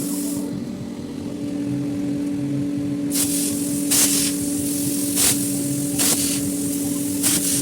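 Homemade CNC fibre-laser metal cutter at work: a steady electrical hum, with a hiss that stops about half a second in. From about three seconds in come short hisses roughly once a second, typical of assist gas blowing through the cutting head as it pierces and cuts.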